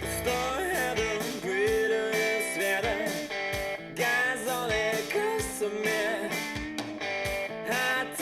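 Recorded music playing through an Akkord 201 stereo amplifier, picked up by a camera microphone: a song with guitar, a gliding melody line and a steady beat.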